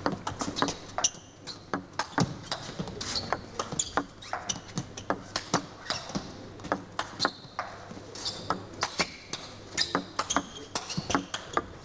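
Table tennis ball hit back and forth in a long rally: a steady run of sharp clicks as the celluloid ball strikes the bats and bounces on the table.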